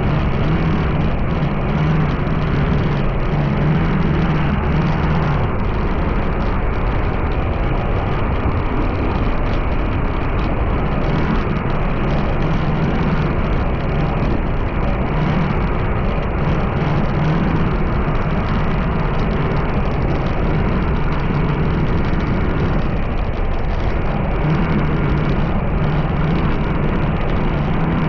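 Steady road noise of a vehicle on the move: engine and tyre noise, with a low engine drone that swells and fades several times.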